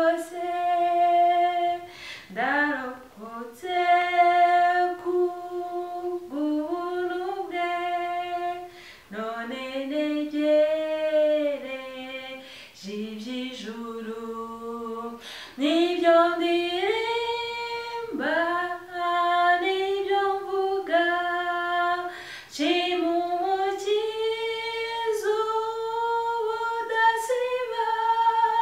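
A woman singing a Kinyarwanda hymn solo and unaccompanied, in long held phrases that slide between notes, with short pauses for breath.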